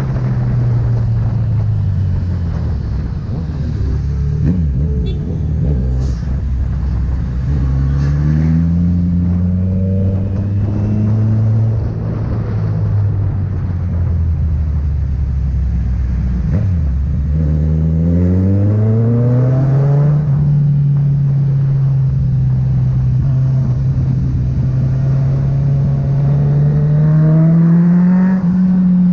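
Kawasaki Z900 inline-four engine through a Firetong aftermarket exhaust. The engine note sinks slowly as the revs bleed off, climbs again at about eight and again at about seventeen seconds, and holds steady before one more brief rise near the end.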